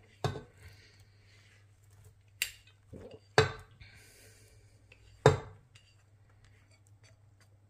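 A spatula and ceramic plate clinking as chopped onion is scraped off the plate into a cooking pot: a handful of sharp clinks and knocks a second or two apart, with faint scraping between them.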